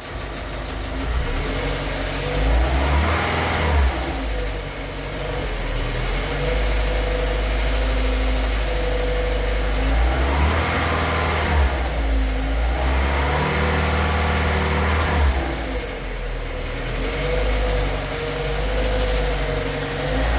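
Volkswagen CrossFox four-cylinder engine idling and being revved up several times, each time falling back to idle. It has a noise that the owner cannot identify and suspects may be a hydraulic lifter (tappet) or worn bearings.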